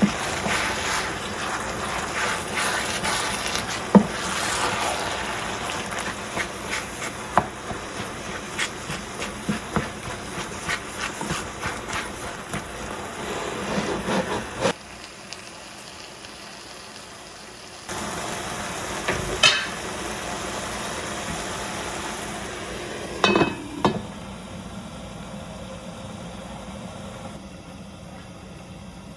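Kitchen cooking sounds: a steady sizzle with many small clicks and taps of utensils, cutting off suddenly about halfway, then a few single knocks.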